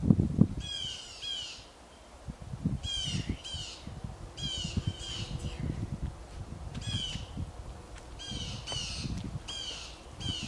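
A bird calling over and over: short, harsh, falling calls, mostly in twos, spread through the whole stretch over a low rumble.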